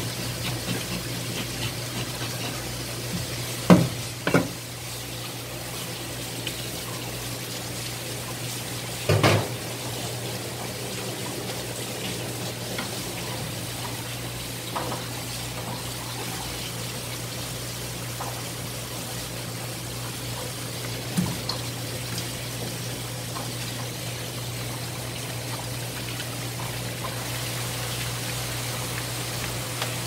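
Water from a spray-head tap running steadily onto a rock bream and a plastic cutting board as the fish is rinsed and scaled, over a steady low hum. A few short, louder knocks come about 4, 9 and 21 seconds in.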